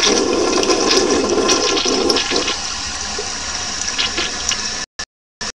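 Freshly rebuilt toilet flushing: a loud rush of water from the tank into the bowl that eases after about two and a half seconds into a steadier hiss as the new fill valve refills the tank.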